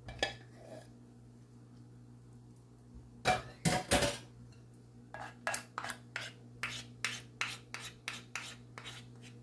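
A metal fork scraping and tapping thick cream of mushroom soup off a wooden spoon over a glass bowl, in a regular run of short strokes, about three or four a second, from about five seconds in. A few louder knocks of utensils come just before, about three seconds in.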